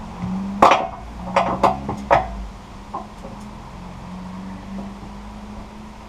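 Sawn alder boards knocking and clunking against each other as they are handled on the sawmill bed: a sharp knock a little over half a second in, then four quicker clunks over the next second and a half, over a steady low hum.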